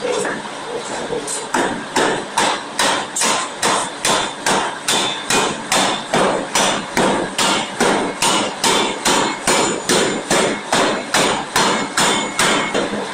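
Steam forging hammer's ram striking a red-hot steel workpiece on the anvil in a steady run of heavy blows, about two a second, starting about a second and a half in.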